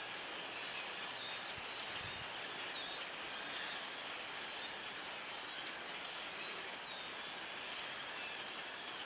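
A huge flock of small black birds screaming together in the trees: a steady din of many overlapping calls with no let-up.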